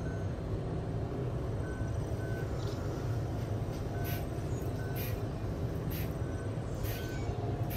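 Hand-held trigger spray bottle squirting in short bursts, a few hissy spritzes from about four seconds in, over a steady low rumble.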